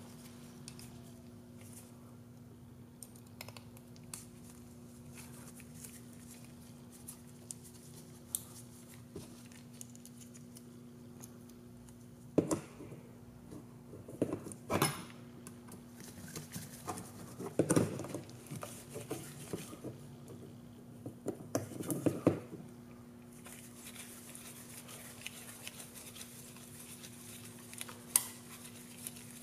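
Light clicks, taps and clatter of small drone-frame parts and screws being handled and screwed together by hand, in a few clusters through the middle and once near the end, over a steady hum.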